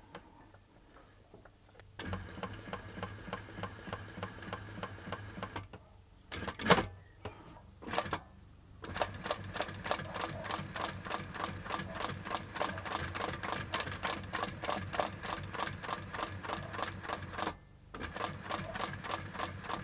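Hightex 7138 industrial compound-feed walking foot sewing machine stitching through denim at its slowest speed, an even clatter of several stitches a second. It runs in stretches: a short run about two seconds in, two single knocks, then a long run from about nine seconds, a brief stop, and it starts again near the end.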